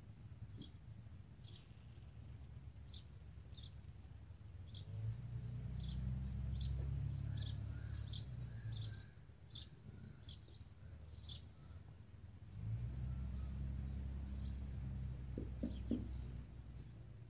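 A sparrow chirping over and over, short single chirps about once or twice a second, growing fainter in the last few seconds. A low rumble swells up twice underneath.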